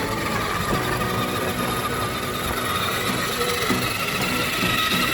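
Electric drive motors and plastic gearboxes of a battery-powered ride-on toy Jeep whining steadily as it drives. The whine climbs a little in pitch near the end.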